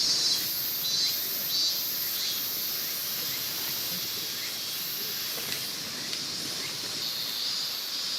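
Steady rush of a mountain stream, with insects chirring in repeated high pulses over it.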